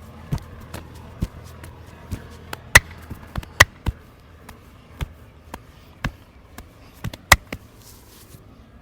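Massage percussion: hands slapping and tapping on the body in an irregular rhythm, about two or three strikes a second, with a few sharp strikes much louder than the rest.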